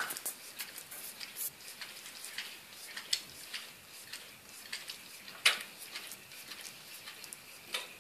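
Bull terrier licking a cat's fur: irregular soft wet licks and tongue clicks, one louder than the rest about five and a half seconds in.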